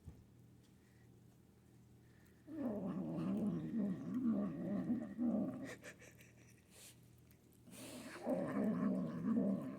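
Manx kitten growling and grumbling while eating, a fast-wavering warble in two bouts: one about two and a half seconds in lasting some three seconds, another starting near the end. It is the kitten's food-guarding noise.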